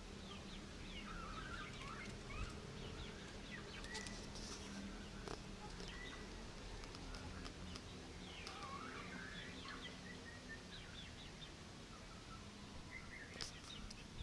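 Faint chirping of small birds, in quick bursts of short up-and-down notes that come and go, over a low steady hum.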